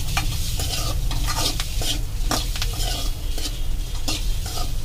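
A metal spatula scraping and clinking irregularly against a metal kadai as boiled quail eggs in spicy masala are stirred and scooped, with the oil sizzling, over a steady low hum.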